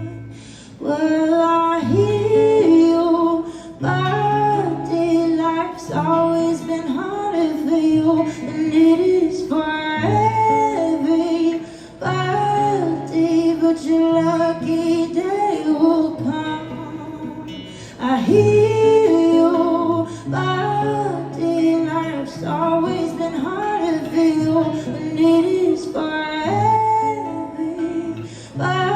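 Live pop song: a female voice singing a melody over guitar and a repeating bass line, in phrases of a couple of seconds with short breaks between them.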